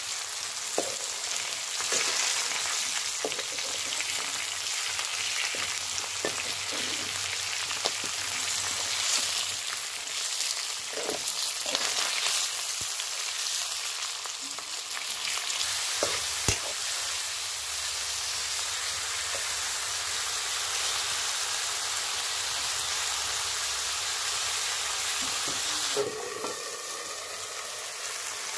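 Fish pieces frying in hot oil in a kadai, a steady sizzle, with occasional clicks and scrapes of a metal ladle stirring them. Near the end the sizzle turns a little quieter as the pan holds tomatoes cooking instead.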